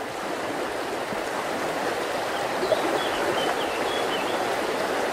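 Stream water rushing steadily over a rocky bed, with a few faint high chirps about halfway through.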